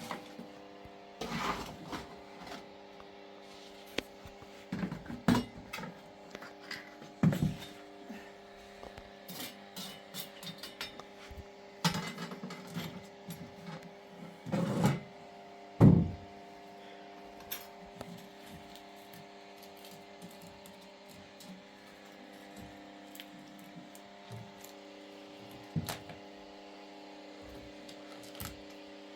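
Irregular knocks, clatter and thumps of objects being handled, busiest over the first fifteen seconds or so, with the loudest thump about sixteen seconds in, then only a few scattered knocks. A steady hum of several fixed tones runs underneath.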